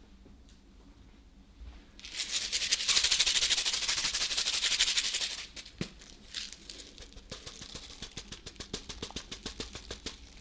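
Metal spatulas clattering rapidly against the frozen steel plate of a rolled-ice-cream pan. A dense run of quick strokes starts about two seconds in and eases off after about five seconds into lighter, quick taps.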